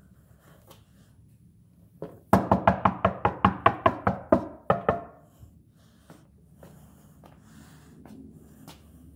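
A gloved hand knocking on the underside of a camper's floor panel: a rapid run of about fifteen knocks, roughly six a second, each with a short hollow ring, lasting about two and a half seconds.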